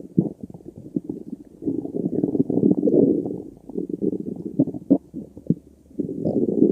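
Human stomach growling: a run of short gurgles and pops, then a long rolling rumble about two seconds in, more pops, and another rumble starting near the end.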